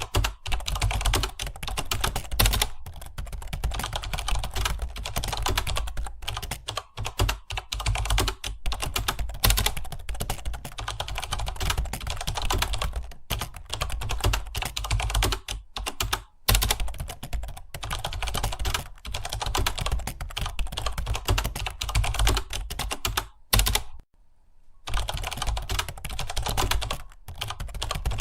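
Computer keyboard typed on fast and continuously, a rapid stream of key clicks broken by short pauses, the longest about a second long late on.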